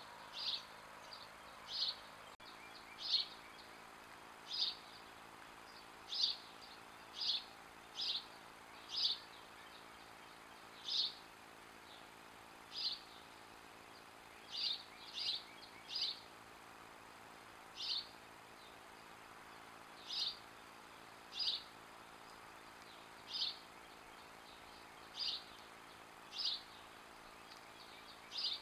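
A bird chirping over and over: single short, high chirps every second or so, sometimes two or three close together, over a faint steady hiss.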